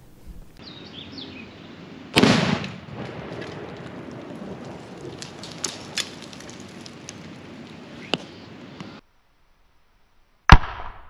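Mixed Tannerite (ammonium nitrate binary exploding target) detonating: a loud blast about two seconds in, followed by a long rolling rumble with scattered cracks. After a cut, a second, sharper and louder blast near the end.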